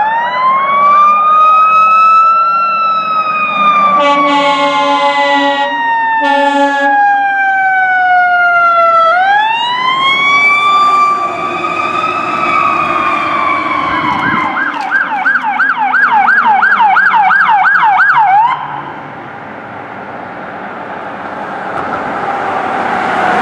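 Fire engine siren in a slow wail, rising and falling, with two horn blasts about four and six seconds in. About fourteen seconds in it switches to a fast yelp, then cuts off sharply about four seconds later, leaving engine and road noise as the truck goes by.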